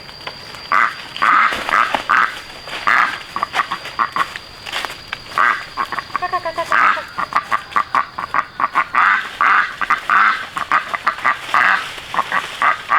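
A rapid, irregular series of short harsh animal calls, several a second, with a few longer pitched calls that bend in pitch about halfway through. A faint steady high whine runs beneath them and stops about two-thirds of the way in.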